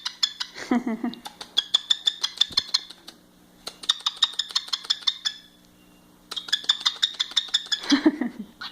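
Male cockatiel rapidly tapping its beak against a ringing object such as a toy or bell, in four quick bursts of clinking taps. Short bird or voice sounds come in near the start and the end.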